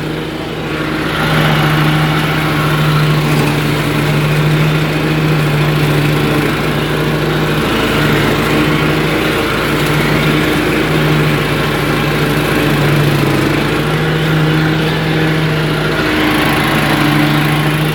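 Zero-turn riding lawnmower's engine running steadily under load while mowing, a constant low hum with a broad hiss over it.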